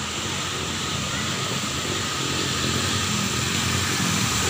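Small motorcycle engines running and growing slowly louder as the bikes approach through shallow floodwater, over the steady rush of the flooded road.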